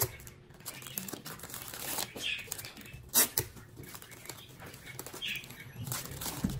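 Florist's wrapping sheets rustling and crinkling as they are folded and gathered around a bouquet's stems, with a sharp, louder crackle about three seconds in.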